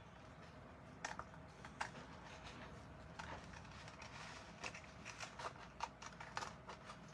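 Scissors cutting a sheet of paper: faint, irregular snips, coming more often in the second half.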